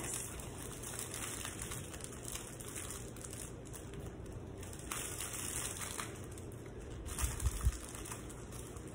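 Faint rustling and crinkling of foliage and plastic wrapping as flower stems are worked and wired into chicken wire, with a low bump about seven seconds in.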